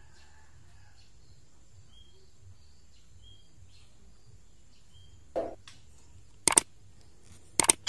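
Faint short bird chirps, then a subscribe-button sound effect: a short whoosh about five seconds in, followed by two sharp double mouse clicks, the loudest sounds here.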